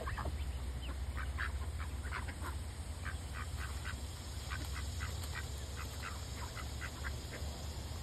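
Ducklings peeping, many short high calls in quick, irregular succession, over a steady low rumble.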